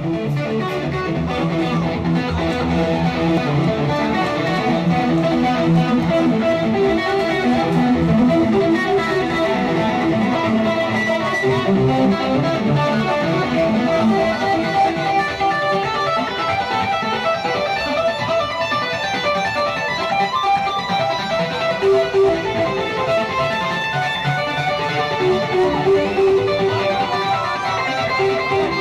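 Stratocaster-style electric guitar playing a lead line live: a melody of sustained, shifting notes.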